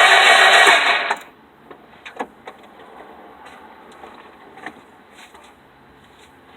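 2001 Honda Civic's starter cranking the engine, which does not catch; the cranking cuts off suddenly about a second in. A few faint clicks and taps follow.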